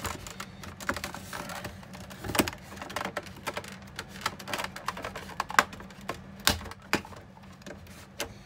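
Irregular light clicks and taps of hard parts being handled as a dehumidifier is taken apart, with a louder knock now and then, over a faint steady low hum.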